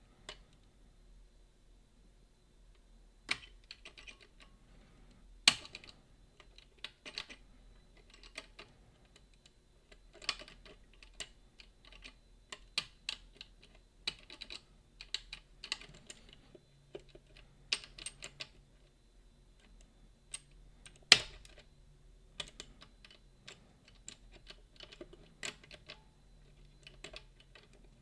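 Irregular small clicks and taps of lock picks working the levers inside a Boda 429 eight-lever lock, with a few sharper clicks standing out.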